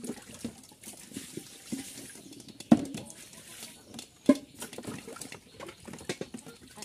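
Chickens pecking grain from a feeding dish: rapid, irregular taps and clicks, with two louder knocks, about three and four and a half seconds in.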